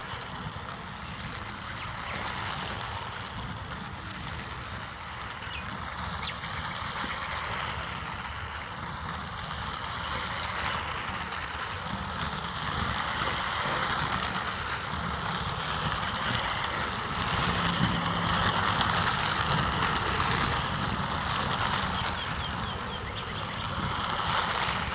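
Battery-operated plastic toy train's small electric motor and gears whirring steadily as it runs fast around plastic track, growing louder from about halfway through.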